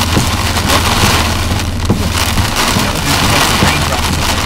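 Heavy rain drumming on the windshield and roof, heard from inside a moving vehicle's cabin. It surges and eases irregularly over a steady low drone from the vehicle.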